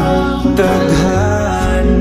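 Music: a slow Filipino pop ballad with guitar accompaniment, in an '8D audio' mix made to circle around the listener on headphones.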